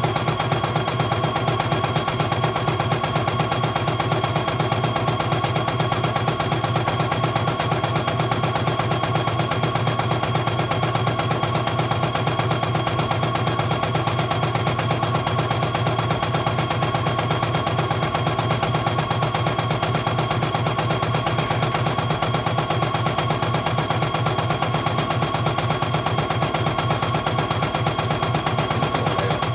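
CNY E900 portable computerized embroidery machine stitching a test design: a fast, even clatter of needle strokes that keeps a steady pace throughout.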